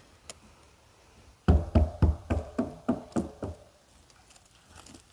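A quick run of about eight sharp knocks, roughly four a second, starting about one and a half seconds in and lasting about two seconds, each stroke with a short ring.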